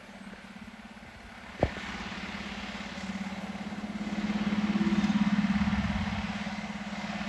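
Fire engine's diesel engine running with a low, fast throb, swelling louder about three to five seconds in as the rig pulls forward, then easing. A single sharp knock sounds about one and a half seconds in.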